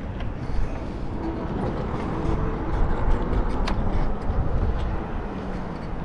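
Riding noise of a bicycle on the move: a steady low rumble of wind on the microphone and tyres on the path, with scattered light rattles and one sharp click a little past the middle.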